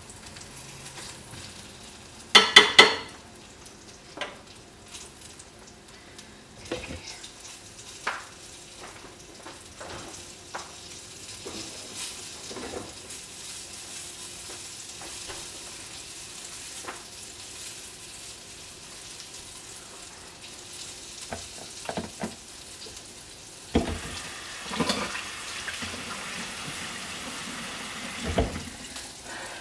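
Food frying in a pan on the stove, a steady faint sizzle, with scattered knocks and clatters of a utensil and cookware; the loudest clatter comes about two and a half seconds in.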